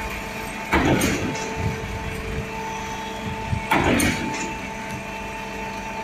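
Portable trailer concrete pump running with a steady mechanical drone. It gives a loud clunk twice, about three seconds apart, as the pumping cycle changes stroke.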